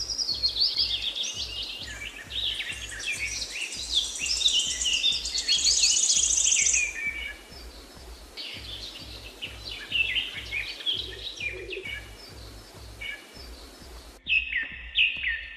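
Several songbirds singing and chirping together in a dense morning chorus of short, sliding chirps, with a fast high trill a few seconds in. A low, even pulsing runs underneath, and the birdsong changes abruptly near the end.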